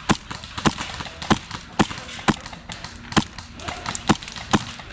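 Airsoft gun firing single shots in quick succession, about nine sharp cracks at roughly two a second, unevenly spaced.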